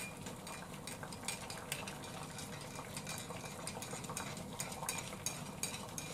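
Metal teaspoon stirring a powdered milk drink in a ceramic mug, clinking against the inside of the mug about two or three times a second.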